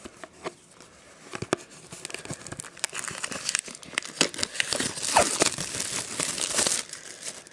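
Trading-card pack wrapping being torn open and crinkled by hand: a run of crackling and tearing that grows louder about halfway through.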